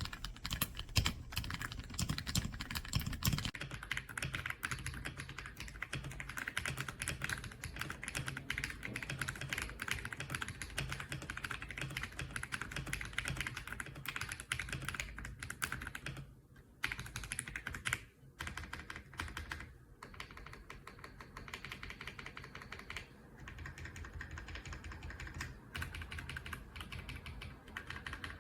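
Typing on the EPOMAKER x Aula F99 gasket-mounted mechanical keyboard with Graywood V3 switches: a fast, steady run of keystrokes with a couple of short pauses midway.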